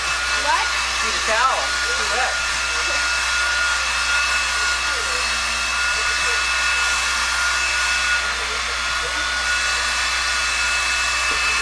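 Handheld hair dryer blowing hair dry: a steady rush of air with a constant high motor whine.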